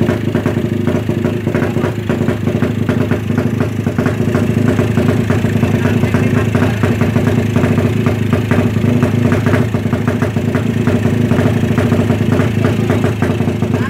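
Ported Suzuki Satria FU single-cylinder four-stroke race engine idling steadily with a fast, even exhaust beat while it is being tuned.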